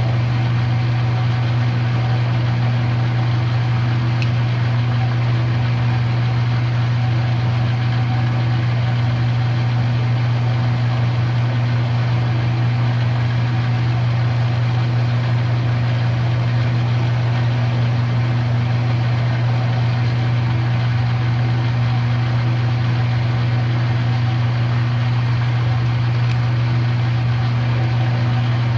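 Electric drill motor running steadily, a loud even hum, as it bores slowly through metal.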